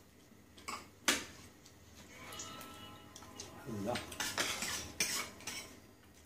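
Spoons and forks clinking and scraping against china plates and a serving bowl during a meal. There is a sharp clink about a second in, a brief ringing from a struck dish between two and three seconds, and a run of clinks later on.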